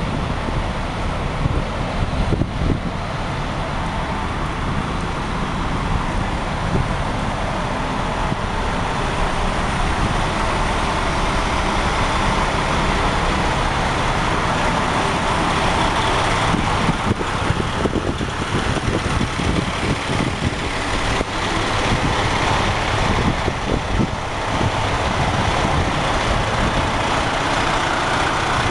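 Fire engines and a ladder truck standing with their diesel engines idling: a steady, loud engine noise mixed with street traffic.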